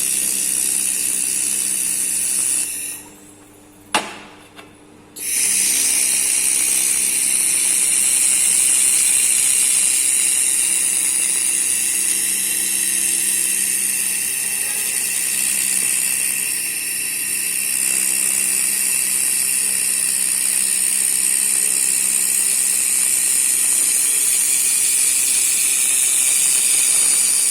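Laser welder running on stainless steel pipe: a steady high hiss over a low machine hum. It cuts out for about two seconds near the start, with a single click in the pause, then starts again and runs on.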